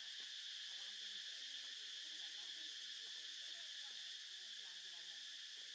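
Steady, high-pitched drone of insects, with faint voices talking underneath.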